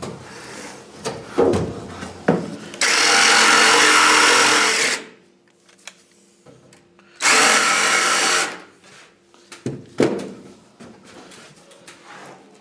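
Power saw cutting a flooring board in two runs, the first about two seconds long and the second shorter, with a few knocks from the board being handled before and after.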